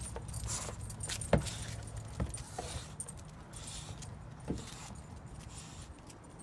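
Light metallic jingling from an English bulldog's collar as it walks with a cardboard box over its head, with a few sharp clicks about one, two and four and a half seconds in. Underneath is a low steady rumble that weakens about halfway through.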